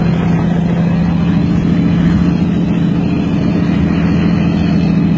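Diesel truck engine running at a steady speed while driving, heard from inside the cab as a steady low drone with road noise.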